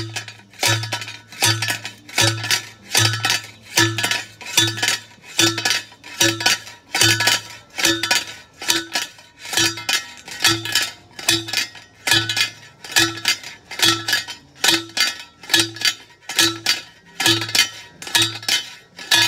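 Manual post driver slammed again and again onto a steel post, each blow a metallic clang with a low ring under it, in a steady rhythm of about four blows every three seconds.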